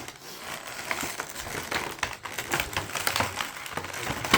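Irregular clicks, taps and crinkling of small plastic toy pieces and packaging being handled.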